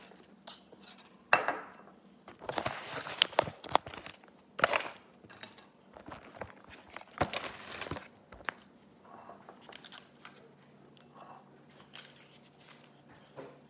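Kitchen handling noises: knocks and clinks as a ceramic mug and other things are picked up and set down on a stone countertop, with bursts of rustling in between. The sharpest knock comes a little over a second in.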